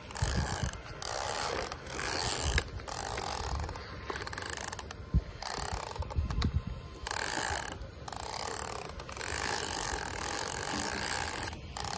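Battery-powered toy bubble lawnmower whirring and rattling as it is pushed over grass, in stretches of a second or so broken by short pauses.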